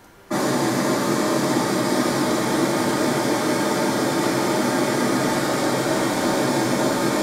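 Pink noise test signal played through a loudspeaker, coming on suddenly at the start and then holding as a steady, even hiss. Almost no deep bass comes through: the speaker has a low-cut filter below about 125 Hz, probably.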